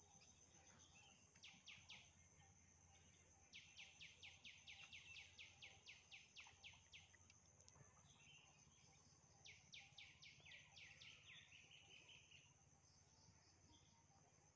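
A bird calling in runs of quick falling notes, about five a second, three runs in all with the longest lasting about three seconds, over a steady high-pitched insect drone.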